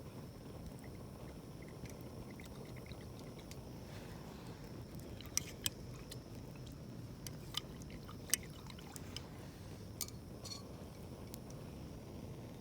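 Wood fire burning with a steady low rush and scattered sharp crackles and pops, a few louder pops in the middle.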